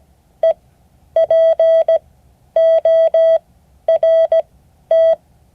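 Morse code practice tone: one steady mid-pitched beep keyed in dots and dashes, sending the letters of the word "report", with clear gaps between the letters.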